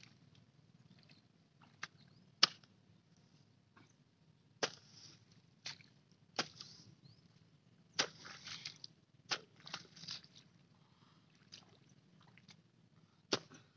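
A hoe chopping into wet, muddy soil of a rice-field bund, about nine separate blows spaced a second or two apart, each a sharp thud, several followed by a short wet scrape as the blade drags through the mud. The loudest blow comes about two and a half seconds in.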